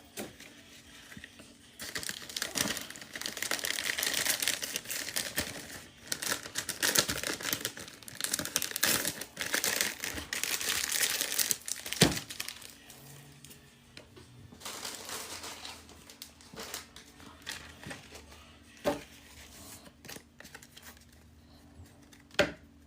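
Plastic packaging crinkling and tearing as it is handled, dense for about ten seconds and then quieter. A few sharp knocks come later, one about midway and two near the end.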